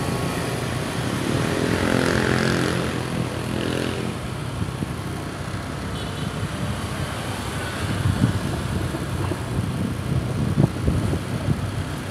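Motorcycle engine running at riding speed on a street, with a steadier engine tone standing out around two seconds in and rougher rumbling noise later.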